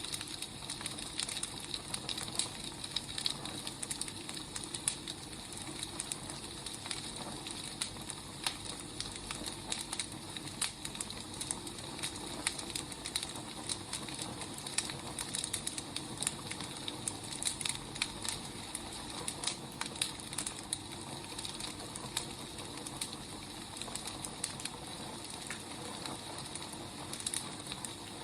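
Burning firewood crackling: irregular sharp pops and snaps over a steady soft hiss.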